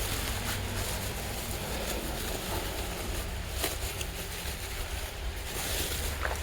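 Steady low rumble with a few faint clicks and rustles, like light handling, scattered through it.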